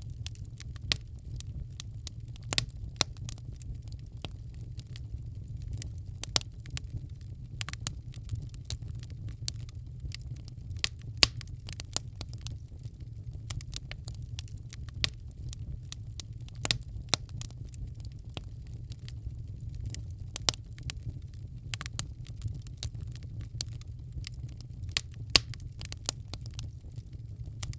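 Wood fire crackling in a fireplace: irregular sharp pops and snaps, several a second, some louder than others, over a steady low rumble.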